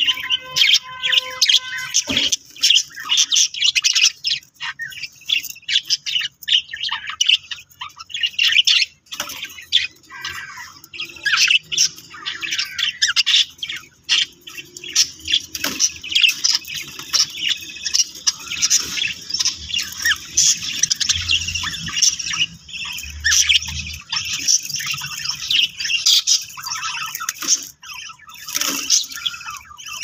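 Budgerigar chicks chirping rapidly and without pause as the mother budgie feeds them: high, squawky begging calls.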